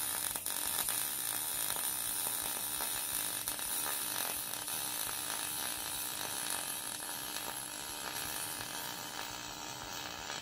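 MIG welding arc crackling steadily while a bead is laid on a small sheet-steel bracket.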